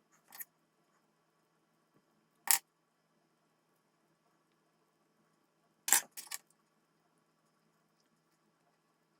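Short, sharp clicks of small hard objects being handled: one about half a second in, a louder one about two and a half seconds in, and a quick double click about six seconds in.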